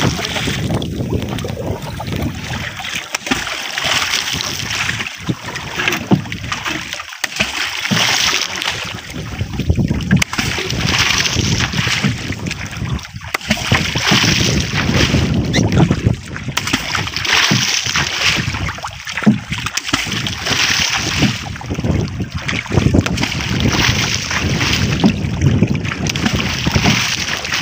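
Repeated splashing as a long wooden pole is plunged and beaten into shallow sea water beside an outrigger boat, the usual way of scaring fish toward a set net. The splashes come irregularly, every couple of seconds.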